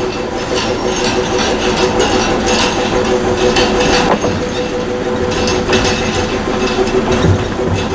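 Small diesel locomotive engine running at low revs with a steady hum and a rattling clatter as the locomotive moves slowly off a turntable.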